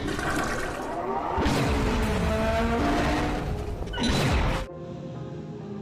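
A loud rushing, whooshing sound effect with gliding tones, cutting off suddenly near the end, then soft background music.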